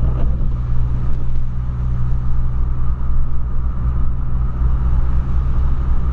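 Steady low drone of a 2008 Volkswagen Polo sedan 1.6 cruising, heard from inside the cabin: engine and tyre noise on a wet road.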